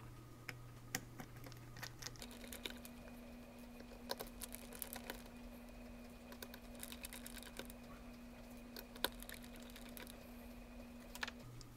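Faint, irregular small clicks and ticks of a precision screwdriver backing out the tiny rear-mount screws of a Pentax 75mm f/2.8 FA 645 lens, with the screws being handled and set down on the bench. Under them runs a steady low hum that steps up in pitch about two seconds in and drops back near the end.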